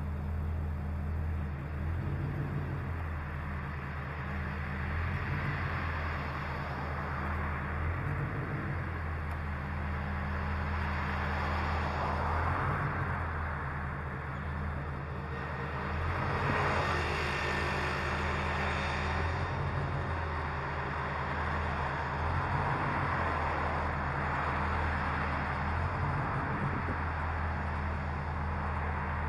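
Car engine idling at a standstill, a steady low drone, with road traffic passing; one vehicle goes by louder a little past halfway.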